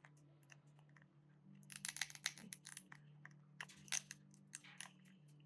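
Faint, irregular clicks and scrapes of a screwdriver prying a cracked plastic wheel axle out of a small robot wheel, starting about a second and a half in, over a low steady hum.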